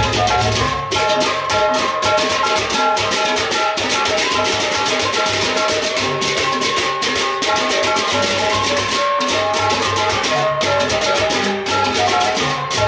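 Lombok gendang beleq ensemble playing a gending: dense, rapid clashing of many hand cymbals over a repeating melody on small gongs, with the large barrel drum beating underneath.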